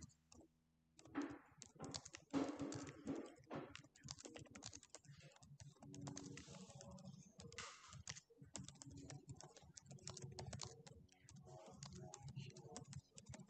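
Faint typing on a computer keyboard: quick, irregular keystroke clicks as a sentence is typed out.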